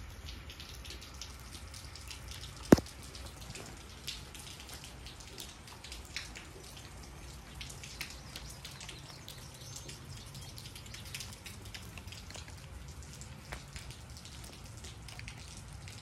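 Light rain: scattered raindrops ticking irregularly on wet ground, with one sharp, much louder click about three seconds in.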